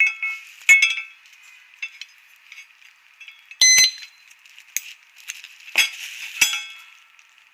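A motorcycle disc-brake alarm lock being handled: a series of sharp metallic clinks and rattles with brief ringing tones. The loudest is a short ringing tone about three and a half seconds in.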